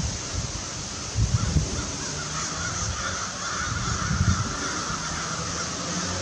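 A flock of American crows cawing, many harsh calls overlapping, thickest from about two seconds in. A few low thumps come at about a second in and again past four seconds.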